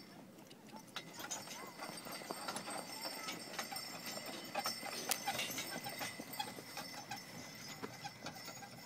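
Horse's hooves clip-clopping as it pulls a sleigh, the footfalls growing louder about a second in.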